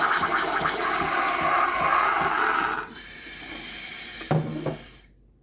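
Nespresso capsule coffee machine running with a loud, pulsing, gurgling hiss that stops about three seconds in. A clunk follows and the machine falls quiet.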